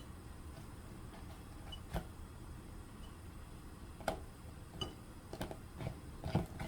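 Several light knocks and clicks at uneven intervals over a low steady hum, the loudest near the end.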